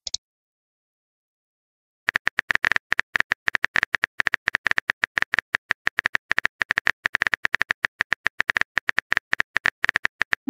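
Rapid, continuous run of phone-keyboard key clicks, a simulated typing sound, as a text message is typed. It starts about two seconds in and stops just before the end.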